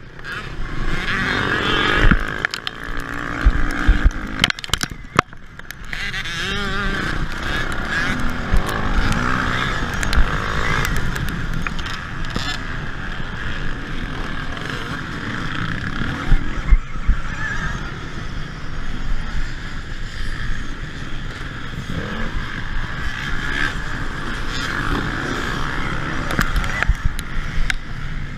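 A pack of petrol dirt bikes running and revving close by, their engine notes rising and falling, with wind and tyre-on-dirt noise.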